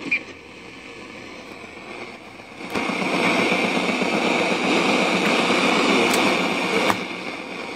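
Sony WM-F10 II Walkman's FM/AM radio putting out static: a faint hiss, then a click nearly three seconds in and a steady, louder rush of static with no station tuned in, with two more small clicks near the end.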